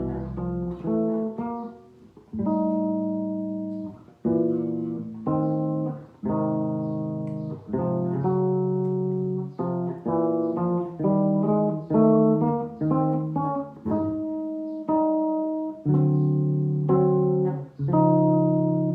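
Solo bass playing a chord-melody jazz arrangement: plucked notes and chords, each struck and left to ring and fade, coming about one to three a second.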